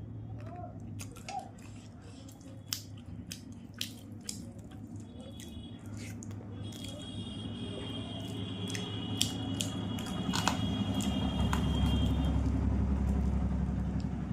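Eating fish curry and rice: wet chewing with sharp lip smacks and mouth clicks. A low rumble grows slowly louder underneath, and a steady high tone sounds for several seconds from about the middle.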